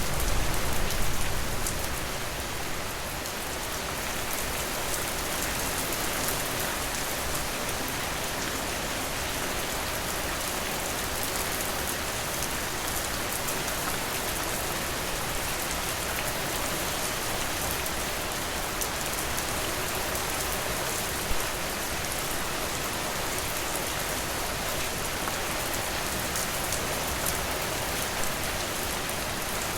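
Steady, dense rainfall, with a low rumble that fades away over the first two seconds or so.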